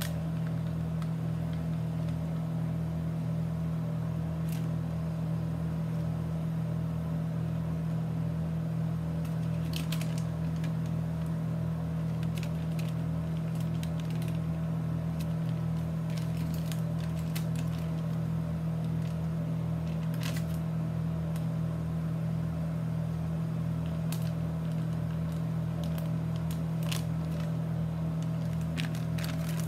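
A steady low hum runs throughout, with scattered crinkles and clicks as a foil-and-paper dressing packet is handled and opened.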